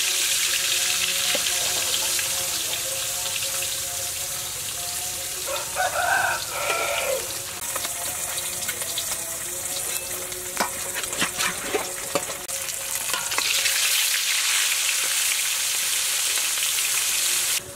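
Whole fish frying in hot oil in a wok: a steady sizzle, with a few sharp clicks of a spatula against the wok near the middle.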